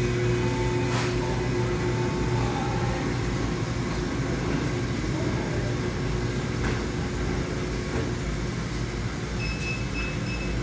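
Steady low hum of running machinery, with a few short high beeps near the end.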